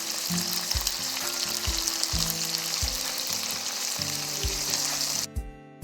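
Tuna steaks sizzling in a pan of tomato sauce, a steady crackling hiss that cuts off suddenly about five seconds in.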